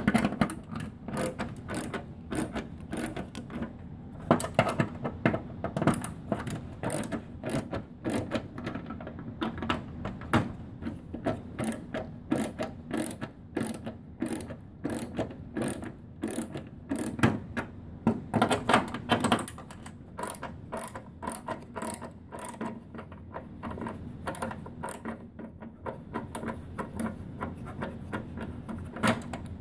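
Hand screwdriver backing screws out of a large-format printer's cover panel: a quick, irregular run of small metallic clicks and ticks as the driver turns and the screws work loose.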